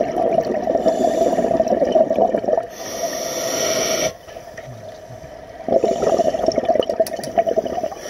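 Scuba diver breathing through a regulator underwater: a loud bubbling exhalation, then a hissing inhalation, a short pause, and another bubbling exhalation starting near the end.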